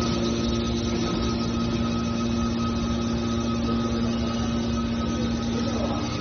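Hydraulic power unit of a scrap-metal shear baler running with a steady hum and a constant whine.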